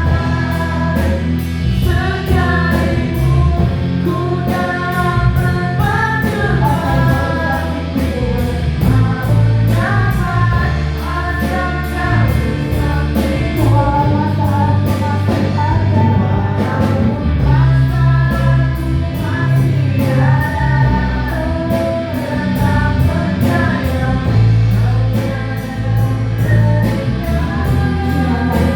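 Christian praise-and-worship song performed live by singers and a band, with a steady bass line and a regular beat of high percussion ticks.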